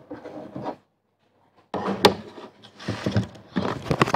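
Handling noise: rubbing and knocking against something wooden. It comes in two stretches with a short pause between them, and a sharp knock about two seconds in.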